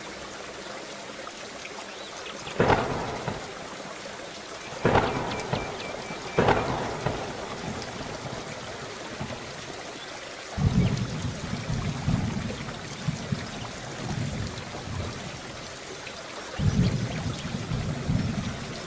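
Steady heavy rain with thunder: three sharp cracks in the first seven seconds, then long low rolling rumbles from about ten seconds in, and another near the end.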